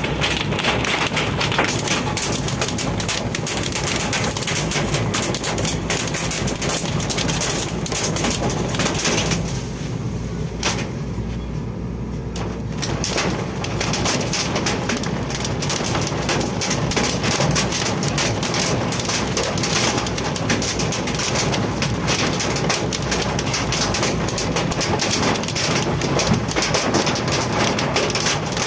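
Hail and heavy rain drumming on a car's roof and windscreen, heard from inside the cabin: a dense, continuous clatter of impacts that thins out for a few seconds about ten seconds in, then picks up again.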